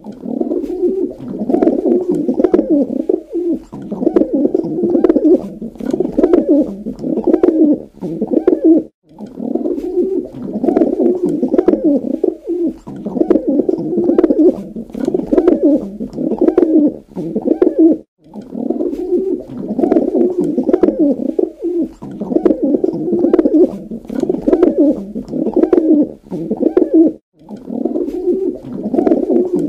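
Pigeon cooing: a long series of low, rolling coos one after another, broken by short silences about every nine seconds.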